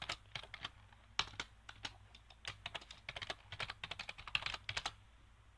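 Computer keyboard being typed on, an irregular run of key clicks that stops near the end.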